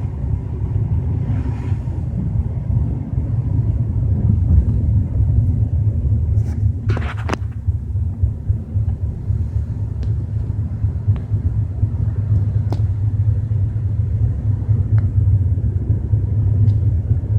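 Steady low rumble heard inside a BMW 320i's cabin while driving at under 40 km/h, the unexplained rumbling noise this car makes at 30 to 40 km/h. A few brief clicks come about seven seconds in.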